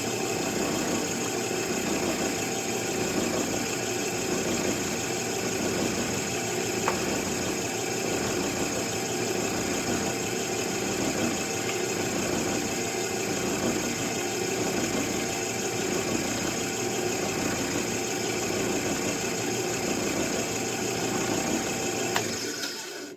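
Electric drill running at a steady speed as it bores through a plastic rifle stock, then cutting off suddenly near the end.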